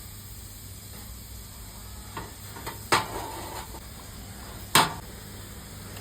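A few sharp knocks of steel on steel, the loudest about three seconds in with a short metallic ring, over a steady low hum.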